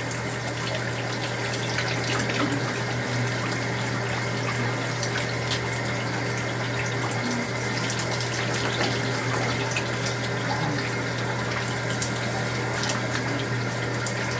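Shower water spraying steadily, with a constant low hum underneath.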